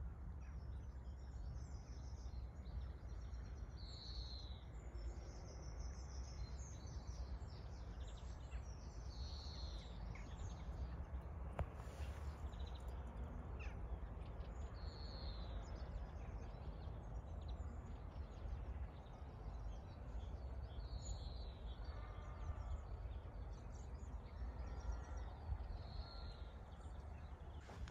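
A bird's short high calls, each a quick falling note, repeated every few seconds over a steady low rumble of ambient noise.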